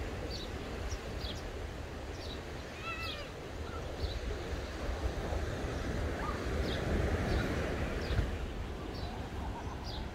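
Outdoor seaside ambience: wind rumbling on the microphone over a steady wash of surf, with birds chirping repeatedly and one louder warbling call about three seconds in.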